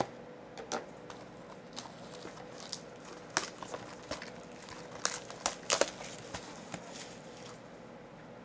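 Packaging on a box of trading cards being torn and crinkled open: irregular crackles and rips, loudest and busiest around five to six seconds in.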